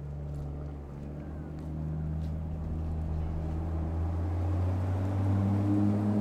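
A motor vehicle's engine running with a steady low hum, growing gradually louder as it comes closer.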